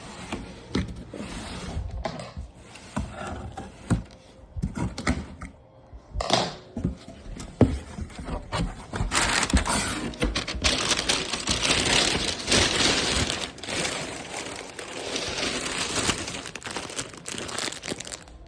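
Packaging being handled and pulled open: scattered knocks and brief crinkles, then steady, dense crinkling and rustling of wrapping from about nine seconds in.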